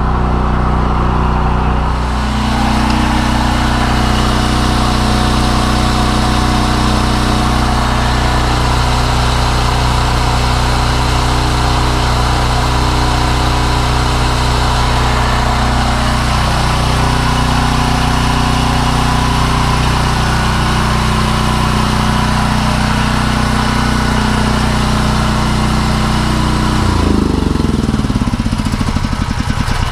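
PowerMate portable generator's engine running steadily at a constant speed inside a ventilated storage-box enclosure. Near the end its pitch slides downward.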